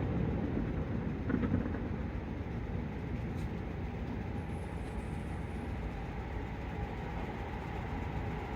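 Steady low outdoor rumble, with the fading echo of a firework burst dying away at the start.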